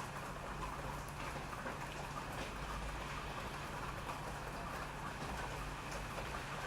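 Steady rain falling: an even hiss with scattered drop ticks over a low, steady rumble.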